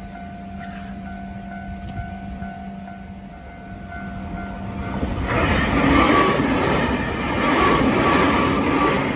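A level-crossing alarm rings steadily with a repeating tone. About five seconds in, a Nankai Main Line electric train passes through the crossing, loud for the last four seconds.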